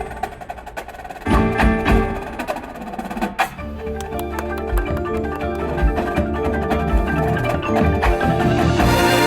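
Drum corps show music: front-ensemble mallet percussion such as marimbas, with sharp percussion hits, building to a fuller, louder ensemble sound near the end.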